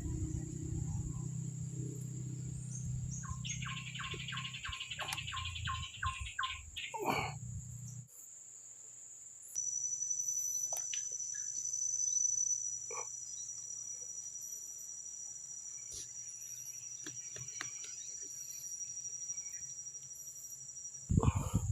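Insects shrilling steadily in a tropical forest, joined by a second steady high shrill from about ten seconds in. A run of about ten evenly spaced chirps sounds early on, a low rushing noise stops abruptly about eight seconds in, and a loud thump comes just before the end.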